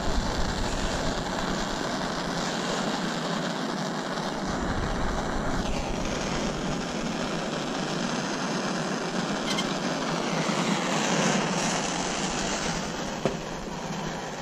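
Handheld gas torch flame hissing steadily while it heats the legs of a fan grill cover so they can be bent. Near the end it goes off with a click and the hiss drops.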